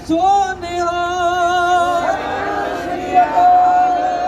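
Sikh hymn singing (kirtan): a man's voice holds long, steady notes, and many more voices come in about halfway through.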